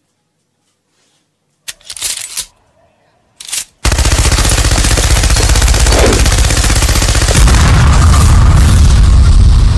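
A machine gun firing one long, rapid, continuous burst, starting about four seconds in after near silence and two brief noises.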